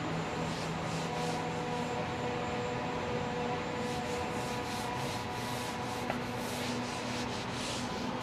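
Steady machine noise from an automated leather-cutting table: a hum with several held tones, overlaid by repeated hissing swishes.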